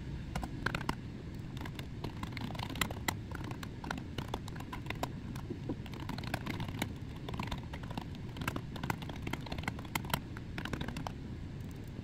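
Typing on a computer keyboard: a quick, irregular patter of keystrokes that stops about a second before the end, over a steady low hum.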